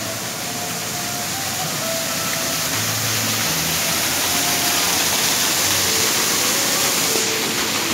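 Waterfall rushing steadily, a loud even hiss of falling water that grows a little louder towards the end.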